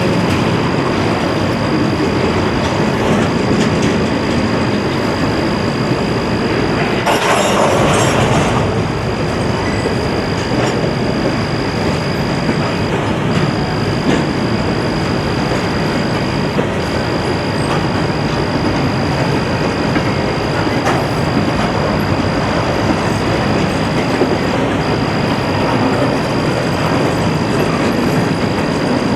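Norfolk Southern double-stack intermodal freight train rolling past, a steady rumble and clatter of wheels on rail, with a thin high tone over it. About seven seconds in, a brief louder hiss rises over the rumble for about a second and a half.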